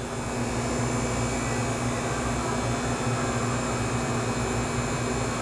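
Steady whir of a fan-driven machine with a low hum under it, getting a little louder just after the start and then holding even.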